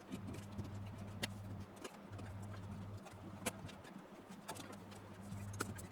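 Faint, scattered light knocks and taps over a low steady hum that drops out briefly twice.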